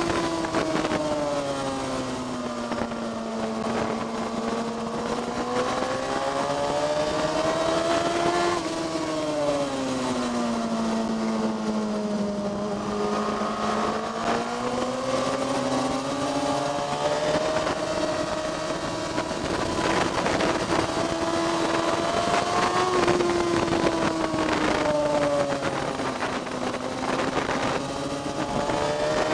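A vehicle's engine at speed on a road-racing circuit. Its note falls and climbs again several times as it slows for corners and accelerates out, with sudden pitch changes between sweeps, over steady rushing noise.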